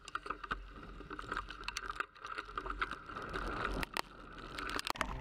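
Hardtail 29er mountain bike rolling down a dirt trail: tyre noise on packed dirt with frequent sharp rattling clicks from the bike, over a low rumble.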